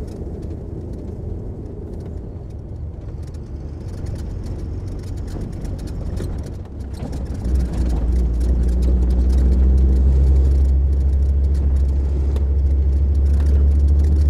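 MAN LE280B 4x4 truck's six-cylinder diesel engine running while the truck drives, a steady low drone that grows louder and heavier about halfway through and stays there.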